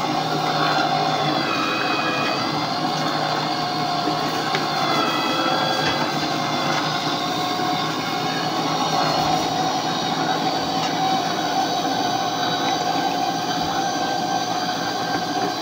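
Electric juicer running as it presses carrot, apple and cucumber: a steady grinding with several wavering high-pitched tones over it.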